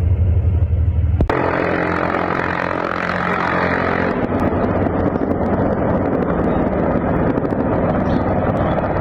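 Military helicopter's rotor chopping low and steady. About a second in, the sound cuts abruptly to a loud, dense rushing noise with a fainter steady hum under it.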